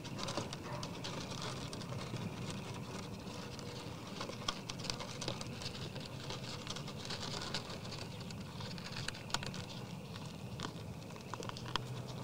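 Whitetail deer eating from a tray feeder: an irregular run of small crunches, clicks and patters as they chew and nose through the feed in the pan.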